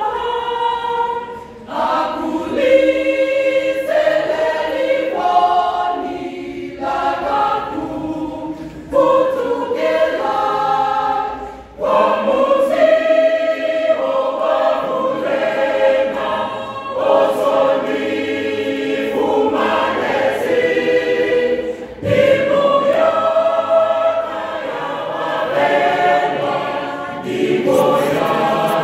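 Mixed choir of men's and women's voices singing a gospel song in parts, in long phrases with short breaks roughly every ten seconds.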